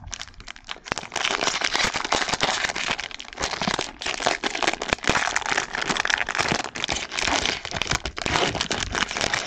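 Plastic wrapper of a baseball card pack being torn open and crinkled: a dense crackle with many small clicks, starting about a second in.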